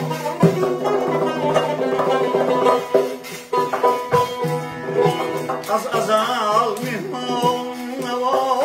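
Folk music played live on a tar, its strings plucked in quick melodic runs, with a frame drum beaten in steady rhythm.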